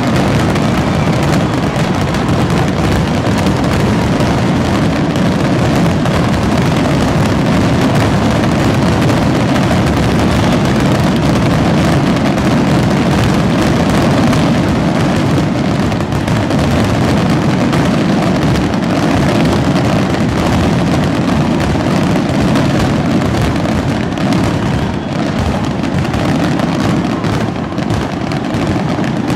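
Fireworks finale: a dense, continuous barrage of overlapping shell bursts that merge into one loud rumble, easing a little near the end.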